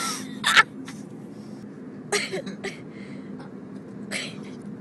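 A man's short grunts and mouth noises while eating a chocolate-dipped ice cream cone: three brief bursts, the loudest near the start, over a steady low hum.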